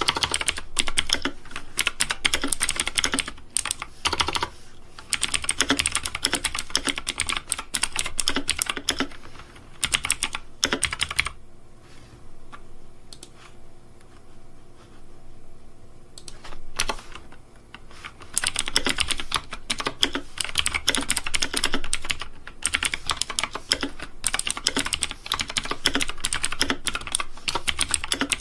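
Fast typing on a computer keyboard, a dense run of key clicks. It breaks off for several seconds about halfway through, with only a few scattered clicks, then resumes.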